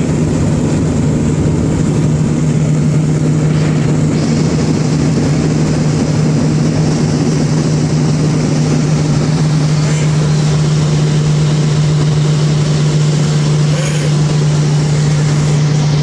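Inside a classic car cruising at steady motorway speed: a constant engine drone with road and wind noise.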